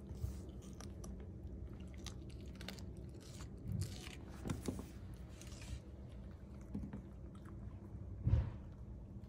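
A puppy biting and chewing raw red bell pepper: a string of small, crisp crunches. A louder low thump comes about eight seconds in.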